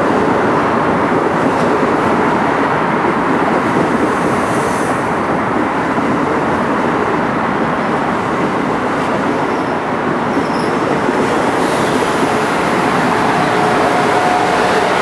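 Electric passenger train moving through the station, giving a steady, even running noise of wheels on rail.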